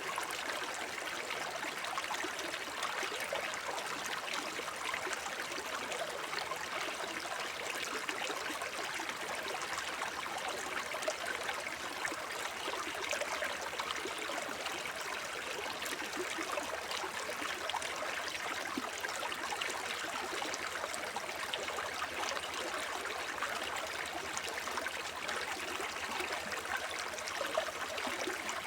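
Shallow forest brook babbling and trickling over stones, a steady, even flow of water.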